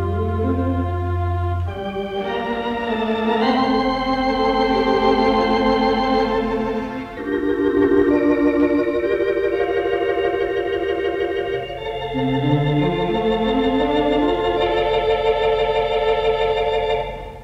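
The Gaumont Manchester's 4-manual, 14-rank Wurlitzer theatre organ playing held, wavering chords, with a rising run of low notes about two-thirds of the way through. It is heard through an old mono tape recording taken off the radio. The music dies away near the end.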